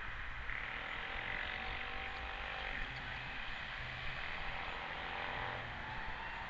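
City street traffic noise as a two-car Tatra T3 tram rolls along its street track toward and past the listener, while a small van drives past close by. A faint whine wavers through the middle.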